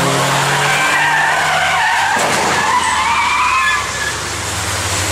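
Car engines running past on a wet racetrack, then tyres squealing in a wavering high pitch for about three seconds as a silver convertible skids out of control on the wet surface. The squeal stops near the end.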